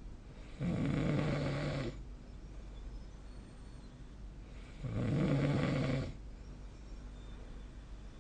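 A sleeping person snoring twice, each snore a rattly, low-pitched sound lasting a little over a second, about four seconds apart.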